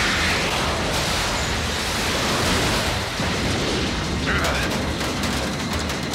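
Cartoon explosion sound effect: a loud, continuous noisy blast with rocks and debris clattering down in a quick run of clicks about five seconds in.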